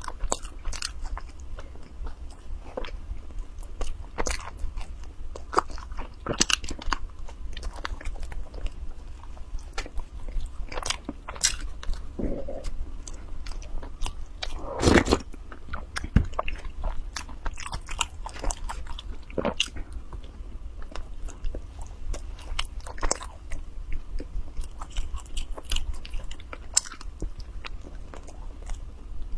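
Close-up mouth sounds of someone biting and chewing soft white bread: many small wet clicks and smacks at an uneven pace. About halfway through there is one louder, longer gulp as a drink is taken from a glass.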